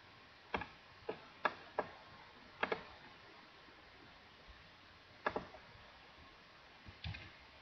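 Computer mouse clicking: a handful of separate clicks, some in quick pairs, with quiet room tone between them.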